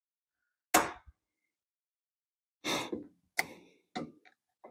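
A sharp snip about a second in, then a few short metallic clicks and taps: a steel cotter pin through a wheel-hub spindle nut being cut off and bent over with pliers.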